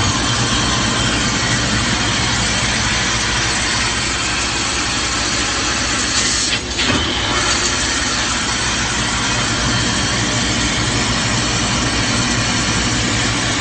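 Tube laser cutting machine running while it cuts round metal tube: a loud, steady noisy hiss with several steady whines running through it, and a brief louder burst about six and a half seconds in.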